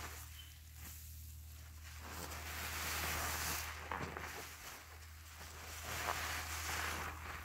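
Soaked yellow HDX sponges being squeezed and kneaded by hand in thick soap suds: wet squelching with fizzing, crackling foam, swelling twice, about three seconds in and again near the end. A low steady hum runs underneath.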